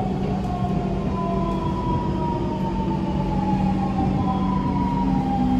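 Siemens GTO-VVVF traction motors of a 1995 C651 metro train whining under steady running noise, the whine falling slowly in pitch as the train slows alongside the station platform.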